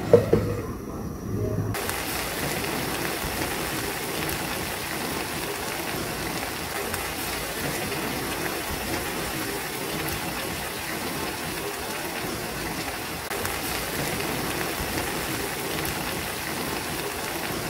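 Chayote and salted-egg stew simmering in a nonstick pan, a steady bubbling sizzle that sets in about two seconds in. A short knock comes at the start as the glass pan lid is moved.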